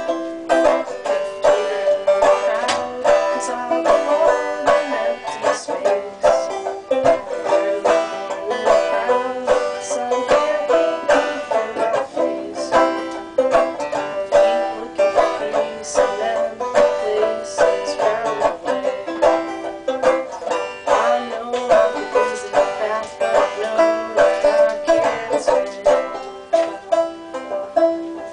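Banjo played clawhammer style: a steady, rhythmic run of plucked notes and downward brushes on the strings.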